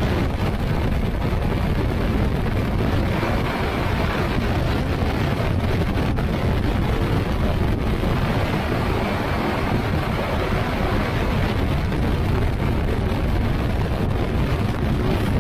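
Steady wind rush on a camera mounted on the wing of an ultralight trike in flight, mixed with the trike's engine and pusher propeller running at cruise.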